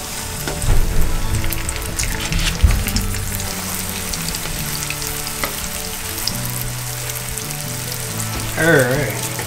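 Cornstarch-dusted whitefish fillets sizzling and crackling in hot oil in a nonstick frying pan. A few low thumps in the first three seconds as a fillet is laid into the pan.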